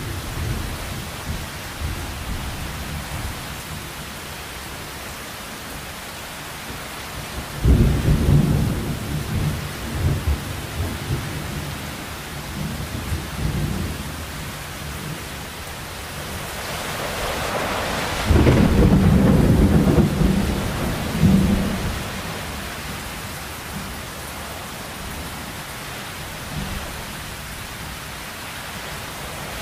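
Heavy rain falling steadily, with thunder rolling over it: light rumbling near the start, a sudden loud peal about eight seconds in that rumbles on for several seconds, and a second long, loud rumble a little past halfway, just after the rain's hiss swells.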